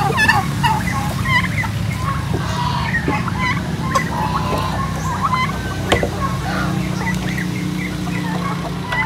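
A feeding flock of turkeys and chickens calling, many short chirping calls overlapping, over a steady low hum. A couple of sharp taps come about four and six seconds in.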